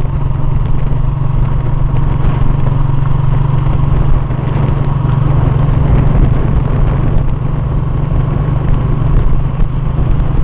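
Small motorcycle engine running steadily at cruising speed, heard from the saddle with wind noise rushing over the microphone.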